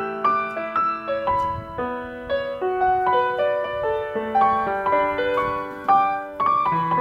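Instrumental background music: a keyboard melody of short held notes changing a few times a second.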